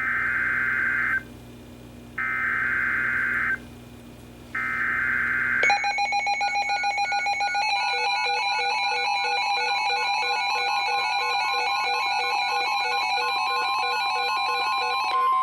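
Three buzzing bursts of NOAA Weather Radio SAME digital header data, each about a second long with a second's gap between them. Then, about six seconds in, several weather alert radios go off at once, layering rhythmic electronic beeping alarms over one another: the tone alert that a new warning triggers.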